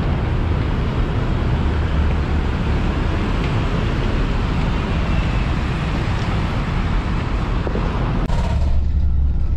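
Road traffic on a busy city road: a steady, noisy rumble of passing cars, vans and motorcycles. About eight seconds in, the sound changes abruptly to a deeper, steadier engine rumble with less hiss.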